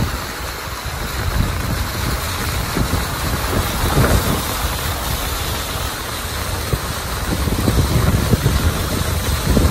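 A vehicle driving through deep floodwater on a street: steady low engine and road noise with the rush of water thrown up by the tyres, surging about four seconds in.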